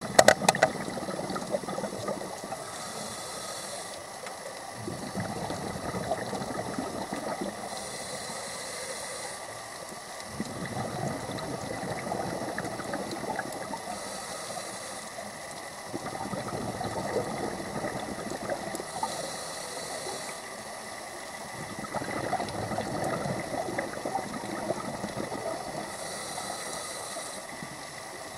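Scuba diver's regulator breathing underwater: a short hiss on each inhalation, then a longer burble of exhaust bubbles, five breaths, one every five to six seconds.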